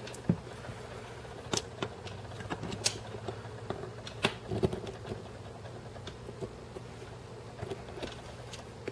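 Small metallic clicks and taps, irregularly spaced, from a steel pin punch and small parts working against the steel frame of a Martian Commercial 6.35mm pistol as a pin is pushed out. A steady low hum lies underneath.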